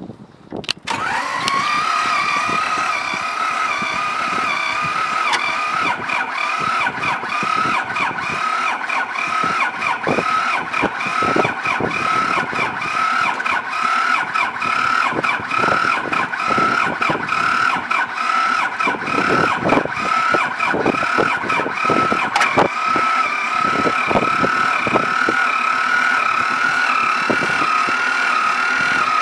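T-25 tractor's air-cooled two-cylinder diesel in a cold start at −5 °C. It sets in suddenly about a second in, then runs on with a steady high whine and irregular knocks.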